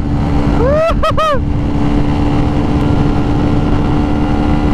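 Bajaj Pulsar motorcycle running flat out at high speed: a steady engine note under heavy wind rush. A short rising-and-falling vocal whoop comes about a second in.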